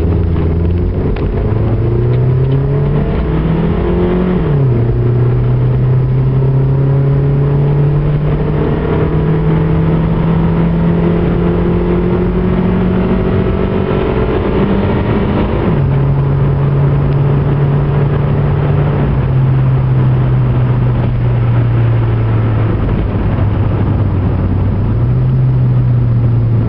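Nissan Pintara's engine heard from inside the cabin, accelerating hard from a standstill. The revs climb, drop at a gear change about four seconds in, then climb steadily as the car nears 100 km/h. About fifteen seconds in the revs fall away as the car eases off and slows, with another drop near twenty seconds and a short rise near the end.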